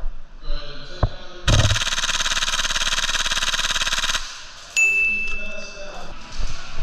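HPA airsoft rifle, a Novritsch SSQ4, firing one long full-auto burst of nearly three seconds, followed a moment later by a sharp metallic ding that rings and fades.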